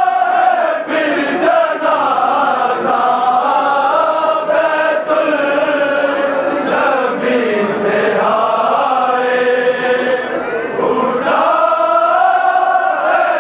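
Men chanting a noha, a Shia mourning lament, in unison in long rising and falling phrases, with hands slapping chests in matam.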